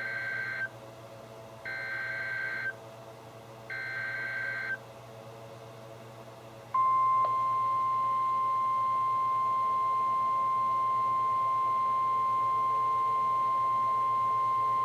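NOAA Weather Radio alert from a weather radio speaker: three short bursts of the SAME digital data header, each about a second long and about two seconds apart. About seven seconds in, the steady 1050 Hz warning alarm tone starts and holds. Together they announce a new warning alert, here a special marine warning.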